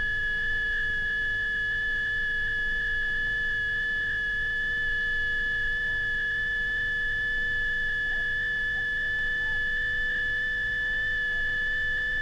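Steady high-pitched electronic sine-wave tone from a film soundtrack, the slowly rising sine wave of an experimental film, held unbroken with a fainter lower tone beneath it and a low pulsing hum.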